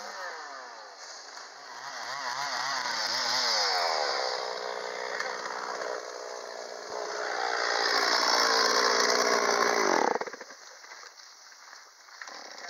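Two-stroke chainsaw cutting wood, its engine revving up and down through the cuts and then dropping off suddenly about ten seconds in.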